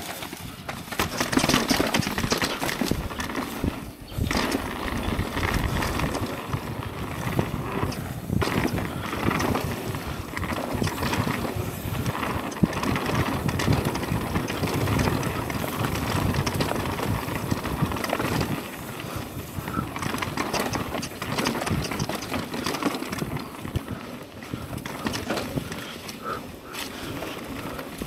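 Mountain bike riding a dirt trail: tyres rolling over dirt, roots and rocks with a dense, steady clatter of knocks and rattles as the bike bumps along.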